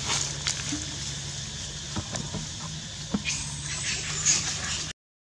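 Baby long-tailed macaque crying out in high-pitched screams for about a second and a half as an adult macaque grabs it, after a few light clicks and rustles of dry leaves; the sound cuts off abruptly near the end.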